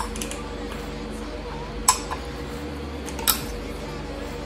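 Combination wrench clinking against steel pulley bolts on a Jeep 4.0 water pump pulley as they are loosened, the pulley held by a band strap wrench. There are two sharp metal clinks, about two seconds in and again just over three seconds in, over a steady hum.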